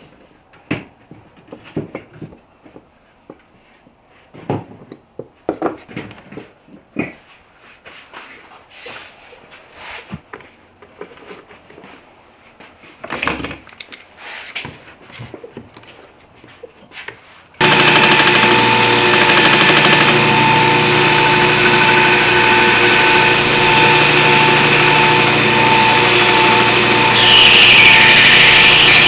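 Scattered light clicks and taps of handling on a wooden workbench. About two-thirds of the way in, an electric bench power tool switches on and runs loudly and steadily, turning harsher near the end as a handle spacer piece is pressed against it.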